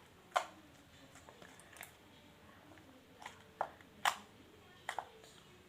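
Stiff homemade slime being squeezed and stretched in the hands, giving only a few faint, irregular clicks and pops. It makes hardly any sound because it came out a bit too hard.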